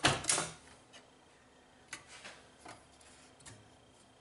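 Plastic and metal clicks and knocks as a Radeon HD 7970 graphics card is handled and pushed into its slot in a desktop PC case: a close cluster of clatter right at the start, then a few light, scattered clicks.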